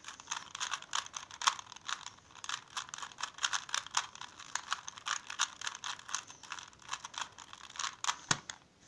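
Plastic 3x3 Rubik's cube being turned fast by hand, its layers clicking and clacking in quick irregular runs of several turns a second. Near the end there is a single duller knock and the clicking stops.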